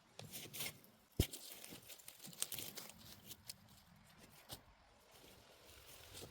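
Weeds being pulled up by hand from soggy garden soil: scattered tearing and rustling of leaves and roots, with a sharp snap about a second in.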